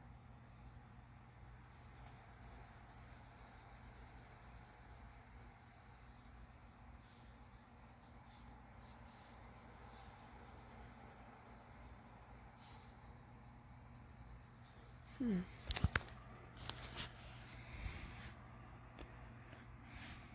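Faint scratching of a woodless colored pencil stroking across paper. Near the end come a brief falling squeak and a few sharp clicks or knocks, which are the loudest sounds.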